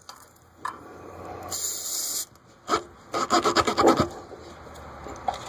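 A tool worked in and out of a tire's puncture hole, rubber rubbing and rasping, as rubber cement is spread inside the hole to prepare it for a plug. A brief high hiss about a second and a half in, then a quick run of scraping strokes around three seconds in.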